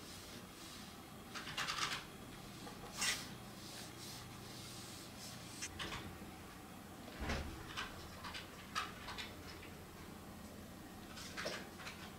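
Brush pen strokes on paper: short, faint, scratchy swishes at irregular intervals, with a soft knock about seven seconds in.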